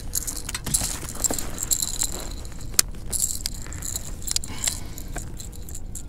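Rattling and jingling of a small lipless crankbait's internal rattles and treble hooks as a hooked small largemouth bass shakes on the line, many quick clicks over a low steady rumble.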